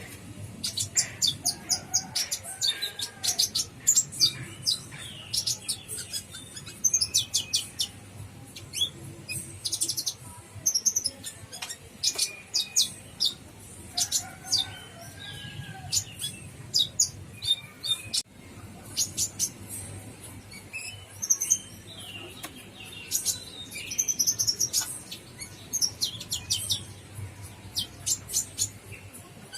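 Purple-throated sunbird (kolibri ninja) calling: rapid runs of thin, high-pitched chirps and trills in bursts separated by short pauses.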